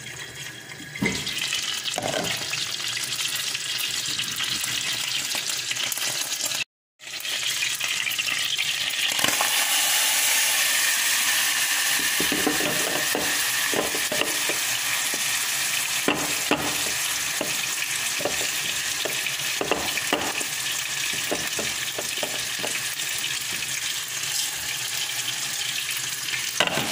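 Soaked rice sizzling and frying in melted butter in a stainless steel pot, a steady hiss. From about halfway on, quick scrapes and taps of stirring sound over it. The sound cuts out briefly about a quarter of the way in, and the sizzle is louder after the break.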